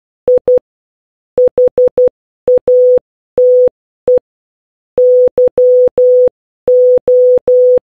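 Morse code beeps: a single steady mid-pitched tone keyed in short and long beeps. It spells out 'I HATE YO', the start of 'I HATE YOU'.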